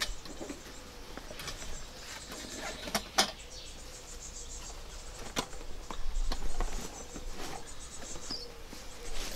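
Handling noise from packing backdrop-stand poles into a fabric carry bag: scattered knocks and clacks, a few sharp ones around three and five seconds in, with rustling of the bag.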